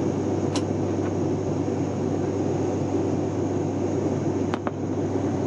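Steady engine and airflow noise heard inside an airliner cabin in flight after take-off, with a steady low hum. Two faint clicks, about half a second in and near the end.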